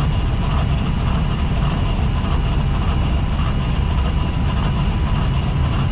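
Steady drone inside an Airbus A320 cockpit on final approach, airflow and engine noise, with the windshield wipers sweeping back and forth.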